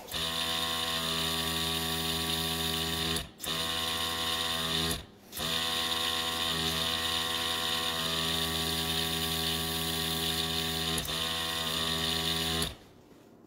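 A small electric motor buzzing steadily at a constant pitch, cutting out briefly twice in the first few seconds and switching off shortly before the end.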